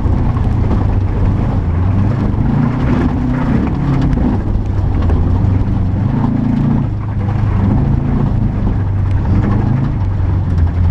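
Subaru Impreza STI rallycross car's engine working hard under way, its revs rising and falling again and again, heard from inside the cabin with tyre and dirt noise beneath it.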